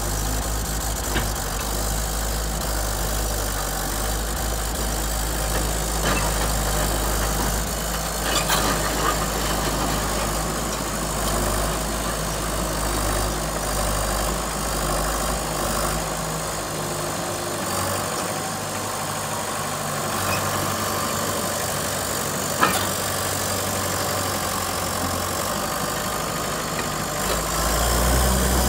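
Komatsu D37P-5 crawler dozer's diesel engine running steadily as the machine tracks forward, with a few sharp knocks along the way. The engine note grows louder and fuller near the end.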